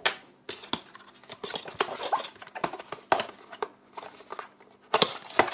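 Hands handling white cardboard packaging: irregular small clicks, taps and rustles, with a sharper knock about five seconds in.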